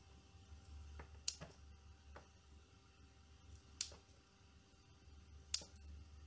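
Scissors snipping through elephant bush (Portulacaria afra) stems: three sharp snips about two seconds apart, with a couple of fainter clicks between, over a low steady hum.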